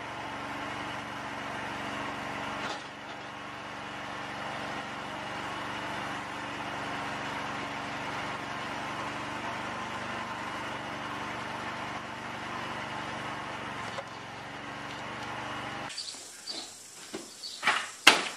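Small engine running steadily, driving the hydraulic pump of a homemade log splitter. About sixteen seconds in it cuts off and gives way to several sharp wooden knocks and clacks, the loudest near the end.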